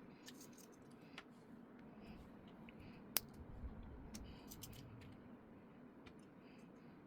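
Faint scattered clicks and light taps over quiet room tone, with one sharp click about three seconds in and a quick run of clicks shortly after.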